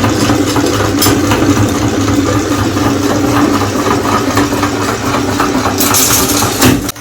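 Electric meat grinder running under load, its motor humming steadily while crunching and rattling grind through the marbles fed into it; it stops abruptly near the end.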